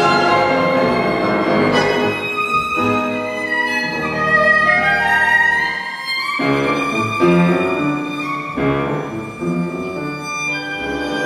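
Live tango orchestra playing: a violin melody over piano, bandoneón and double bass. About four seconds in the melody makes a long slow upward slide.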